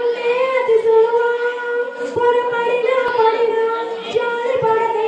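A girl singing solo into a handheld microphone in a high voice, holding long, steady notes with short slides between them.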